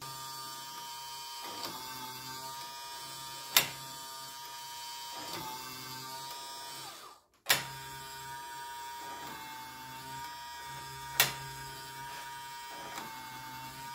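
Small 12 V DC motor of a homemade bandsaw blade sharpener running steadily with a whine, turning the cam wheel and indexer arm, with a lower hum that comes and goes and a sharp click twice. The grinding wheel is not running.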